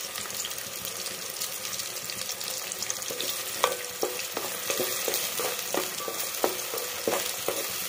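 Small onions sizzling in hot oil in a metal pot as they are sautéed soft, stirred with a spatula. From about three seconds in, the spatula knocks and scrapes against the pot over and over, each knock with a short metallic ring.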